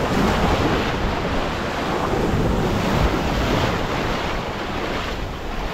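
Wind buffeting the microphone in a steady low rumble, over the wash of small waves breaking on a beach.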